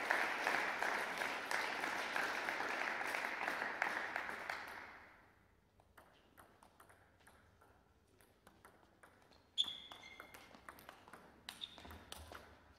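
Spectators clapping for about five seconds, then fading out. After that come the light, sharp clicks of a table tennis ball being served and rallied off table and bats, with one louder, ringing click about ten seconds in.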